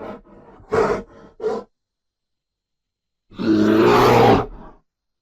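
Bear vocalising: a few short grunts in the first second and a half, then after a pause one low-pitched roar lasting about a second and a half.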